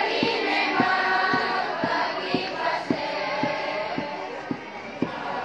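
Junior high school choir singing together, with a steady low knock about twice a second keeping time; the singing eases off a little near the end.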